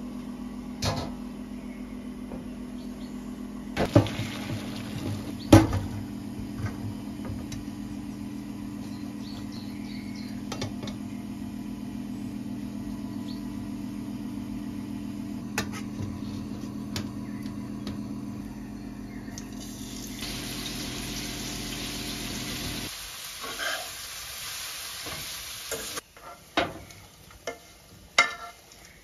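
Kitchen cookware and utensils at work: metal bowls, a strainer and spoons clink and knock a few times over a steady low hum. About twenty seconds in a steady hiss sets in. Near the end a spoon scrapes fried vegetables out of a frying pan into a pot with a few sharp knocks.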